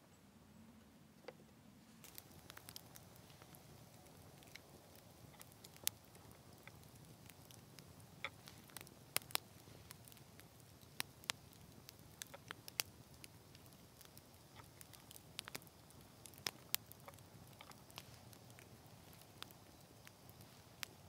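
Small wood campfire crackling, with irregular sharp pops and snaps that start about two seconds in.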